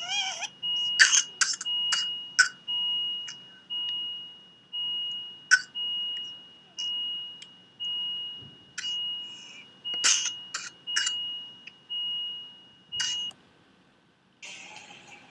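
Electronic beeping at a steady pitch, about one long beep a second, with scattered sharp clicks and rustles over it. The beeping stops shortly before the end.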